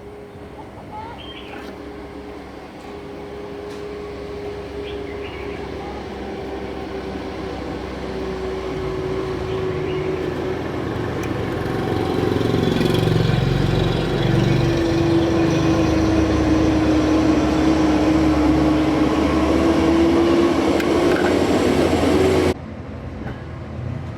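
A machine running with a steady hum and rumble, growing louder over about twelve seconds, then cutting off abruptly near the end.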